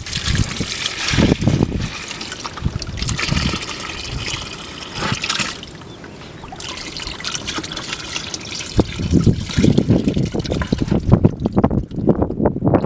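Water pouring and splashing out of a plastic bottle fish trap into a plastic bucket of water, in uneven spurts that grow heavier and deeper in the last few seconds.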